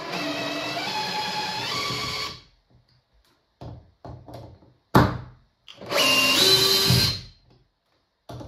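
Modified Makita cordless drill's brushless motor, run by sensorless control, backing screws out of a wood block in two runs of about two seconds, its whine stepping up in pitch as it speeds up. Between the runs come a few clicks and one sharp knock.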